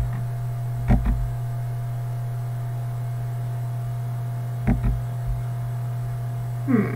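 A steady low electrical hum, with two quick pairs of computer mouse clicks, about a second in and again just before five seconds in.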